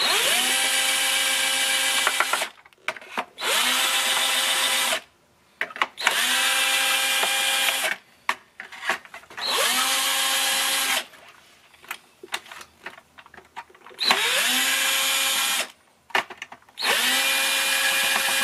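Cordless drill-driver backing screws out of the RC car's plastic body shell. The motor runs six times, each time rising in pitch as it spins up and then holding a steady whine for one to two seconds. Short pauses with a few small clicks fall between the runs.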